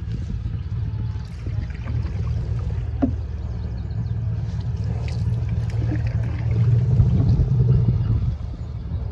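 Wind rumbling on the microphone from a canoe on a river, a steady low buffeting that swells about six and a half seconds in and eases near the end.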